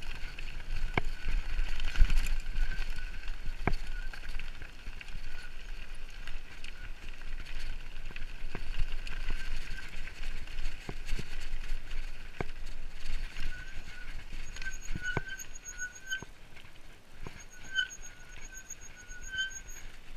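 Mountain bike rolling fast down a gravel track: steady tyre noise on the loose gravel, with scattered sharp knocks and rattles from the bike over bumps. Low wind rumble on the mic in the first few seconds, and a faint fast ticking over the last few seconds.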